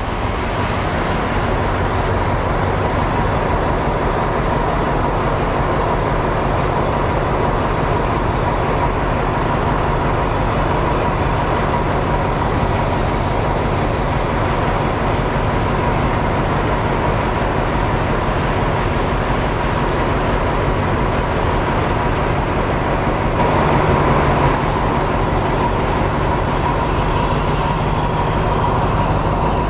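Alsthom diesel-electric locomotive idling with its train at a halt: a steady, loud engine drone with a constant high hum over it, swelling briefly about four-fifths of the way through.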